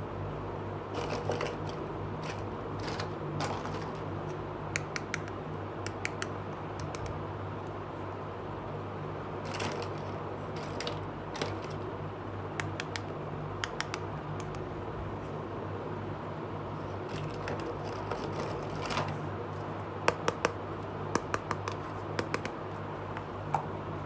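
Small plastic toy pieces clicking and tapping as they are handled and set down on a hard surface, in short scattered clusters, the sharpest clicks coming near the end. A steady low hum runs underneath.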